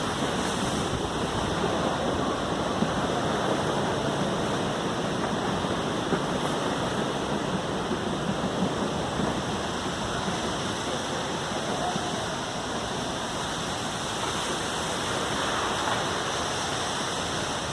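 Heavy rain falling steadily in a storm, an even hiss with no break.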